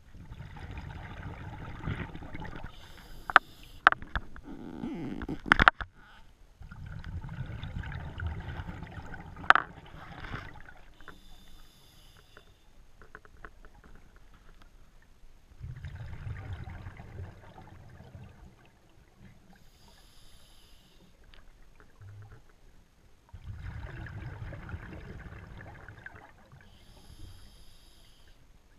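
Scuba diver breathing underwater through a regulator, roughly one breath every eight seconds: each breath is a hiss of inhalation followed by a long bubbling exhalation. A few sharp clicks or knocks fall in the first ten seconds.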